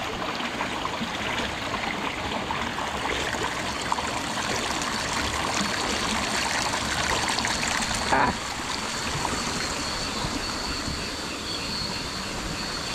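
Steady rushing of running water, like a stream. About eight seconds in there is one brief louder sound, and after it a thin, steady high whine runs alongside the water.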